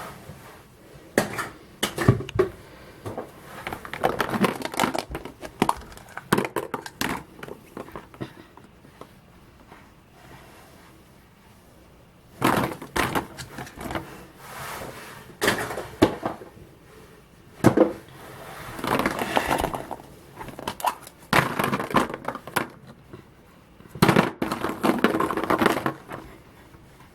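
Foil wrappers crinkling and chocolate surprise eggs being cracked open by hand. The rustling and snapping come in several bursts, with short quiet pauses between them.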